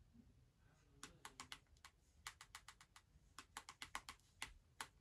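Light, quick typing taps in short runs of several a second, starting about a second in.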